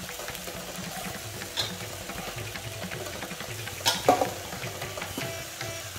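Cabbage fried rice sizzling faintly in a pan on the stove as cooked basmati rice is added to it, with a few sharp knocks against the pan, the loudest about four seconds in.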